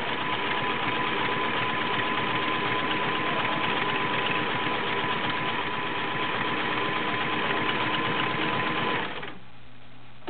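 Vintage Kenmore model 1660 sewing machine running steadily at speed, sewing a stretch stitch, with a steady high whine from its 1-amp motor. It stops about nine seconds in.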